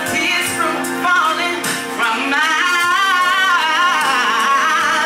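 A woman singing live into a microphone in long, wavering held notes, over sustained chords on an electronic keyboard.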